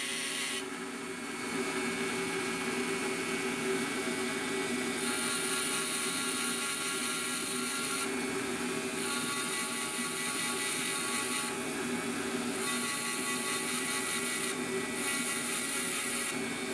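HILDA JD3321C variable-speed rotary tool running with an engraving bit: a steady motor whine, with a scratchy hiss that starts and stops in stretches of a second or more as the bit cuts into the surface.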